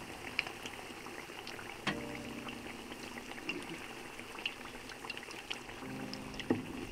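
Battered pakora slices deep-frying in hot oil in a pot: a steady sizzle with frequent small crackling pops. There are a couple of sharper clicks, one about two seconds in and one near the end.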